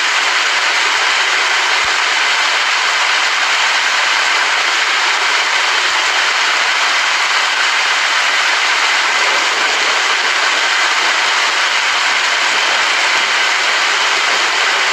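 Rain falling steadily, an even hiss without thunder.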